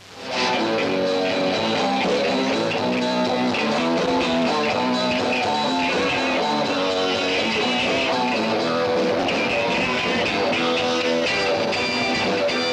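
Rock music with guitar and drums, coming in suddenly in the first half second and then playing steadily at full level.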